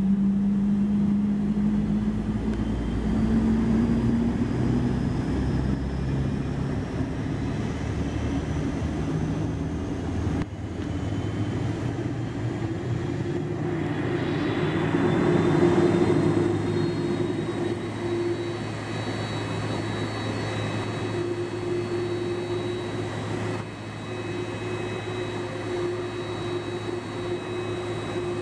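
Jet airliner engines running, a steady hum with thin high whines that slowly rise in pitch. The sound swells briefly about halfway through, then settles.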